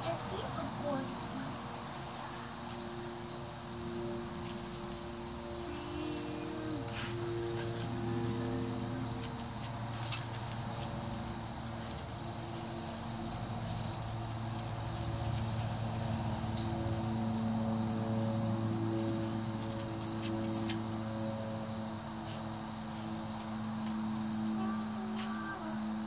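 An insect chirping steadily outdoors, a regular high-pitched chirp about three times a second, over a low hum that wavers in pitch.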